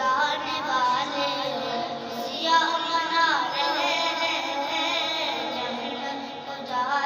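A naat being sung: a high voice holds long, ornamented, wavering notes over a steady background vocal drone.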